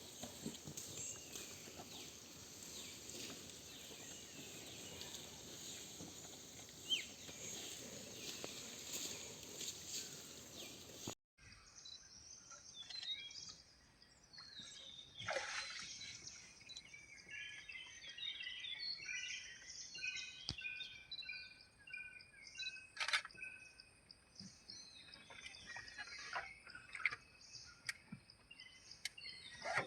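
Steady outdoor background noise for about the first eleven seconds. After a sudden cut, small birds chirp repeatedly, with a few sharp clicks.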